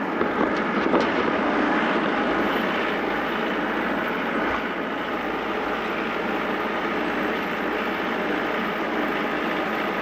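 Tractor engine running steadily as the tractor drives along, with a few knocks about half a second to a second in.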